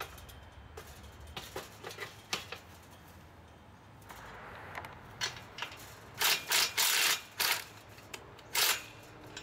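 Steel chain-link gate clinking and knocking a few times as it is hooked onto its post hinges. Then a cordless drill runs in several short bursts, each under a second, driving the hinge clamp bolts tight.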